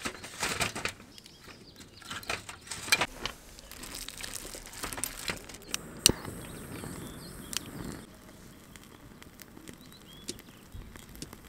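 Close handling noises: irregular crinkling, rustling and sharp clicks, as of gear or packaging being handled.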